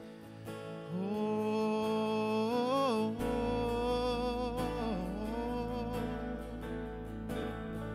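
Live gospel worship song: a man sings long, held notes that waver in pitch, over band accompaniment. A low bass note comes in about three seconds in.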